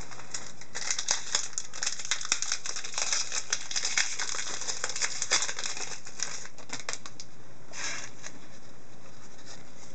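Foil trading-card pack wrapper crinkling and crackling in a rapid run of small clicks as a pack is torn open and emptied. Near the end, a brief rustle of the cards being handled.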